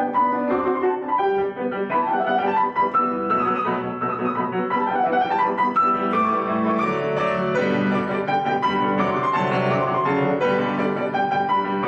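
Piano music, a lively run of many quick notes, starting suddenly and playing on steadily.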